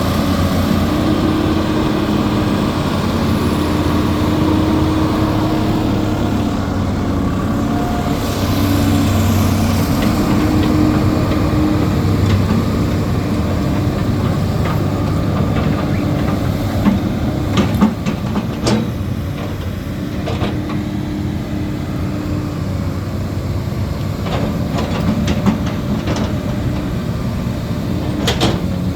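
Diesel engine of a Hyundai Robex crawler excavator running steadily, its engine note shifting in strength now and then. Several sharp clicks or knocks come over it in the second half.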